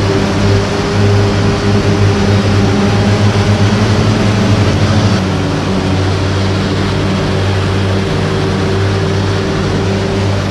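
Self-propelled forage harvester running at full load while chopping sorghum silage: a steady, heavy engine hum with a constant low tone under a wide noise of cutting and blowing crop. The level steps down slightly about five seconds in.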